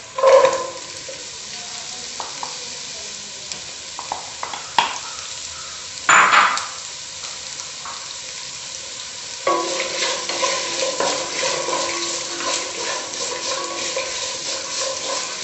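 Sliced shallots tipped into hot oil in a nonstick kadai and frying with a sizzle, then stirred and scraped around the pan with a wooden spatula. The stirring gets busier and louder about nine and a half seconds in.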